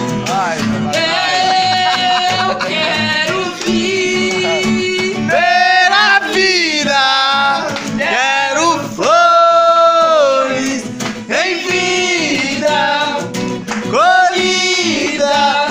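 Acoustic guitar strummed while a man sings a love song in Portuguese, holding long notes.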